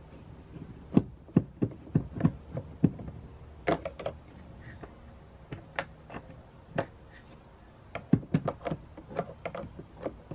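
Sharp clicks and knocks of a long screwdriver and hands working against a car's plastic door panel trim while a deep-set screw is removed, coming in irregular clusters.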